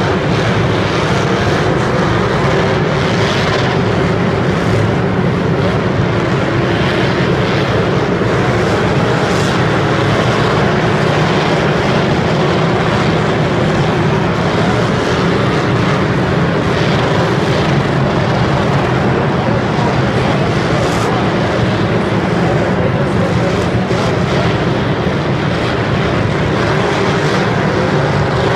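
Many demolition derby car engines running and revving at once, a dense, steady, loud mass of engine noise inside a roofed stadium.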